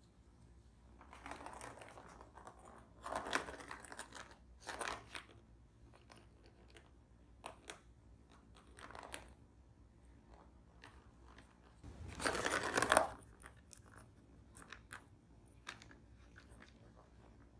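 Kittens scratching, biting and pawing at the corrugated cardboard scratch pads of a plastic cat track toy, heard as several short scratchy crunching bursts. The longest and loudest comes about twelve seconds in.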